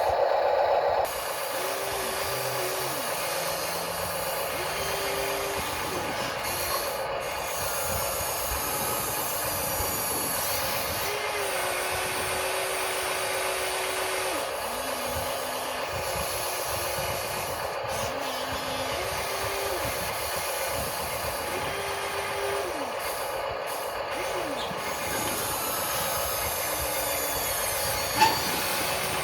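Small electric motors of radio-controlled excavator and loader models whining in short runs of a second or two, their pitch stepping up and down as the functions are worked, over a steady hiss. A single sharp knock near the end.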